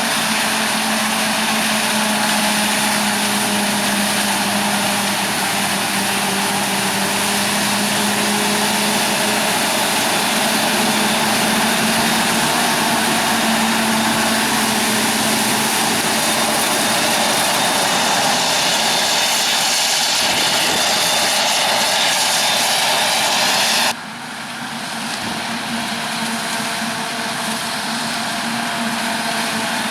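Heavy farm machinery at a maize harvest running steadily and loudly, with a steady engine drone under a wide noisy rush. About 24 s in the sound drops sharply and then builds up again.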